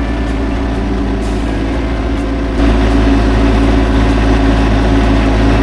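An engine idling steadily with a low, even drone that steps up louder about two and a half seconds in.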